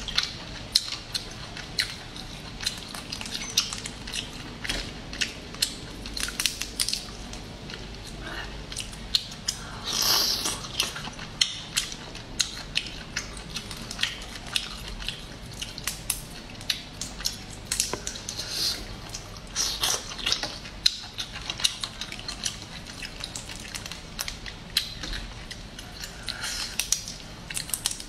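Cooked crayfish shells cracking and crackling as they are peeled apart by hand, in many quick irregular snaps, mixed with wet chewing and mouth sounds.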